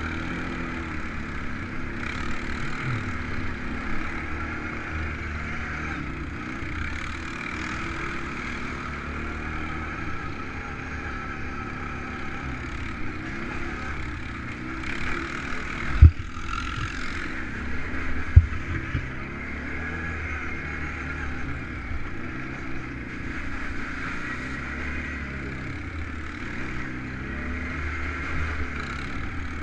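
ATV engine running steadily at trail-riding pace. Past the middle there are two sharp low thumps about two seconds apart.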